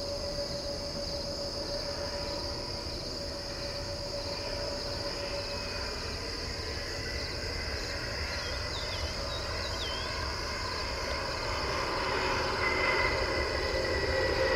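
A CRJ-200 regional jet's two rear-mounted GE CF34 turbofans whining steadily as it lands and rolls out, growing louder over the last few seconds. A steady chirring of crickets runs underneath.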